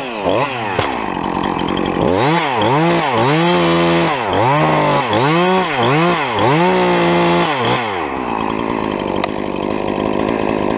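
Two-stroke chainsaw cutting, its engine revving up and dropping back over and over in quick succession, then held at steady high speed near the end.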